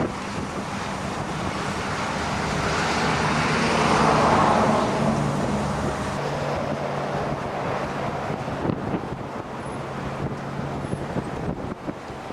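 Blizzard wind blowing across the microphone while a vehicle drives past on the road, loudest about four seconds in, then fading into gusting wind.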